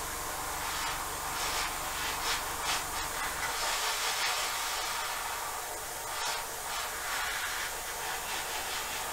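Steady hiss with soft, scratchy rubbing strokes that come in clusters: a small tool scrubbing the top coat of paint on a plastic scale model to chip it back over hairspray.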